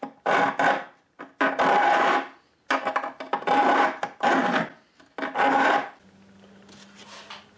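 A hand file stroking back and forth along the edge of a ukulele fretboard, dressing the ends of the metal fret wire flush. There are about half a dozen rasping strokes, roughly one a second, that stop about six seconds in and leave a faint steady hum.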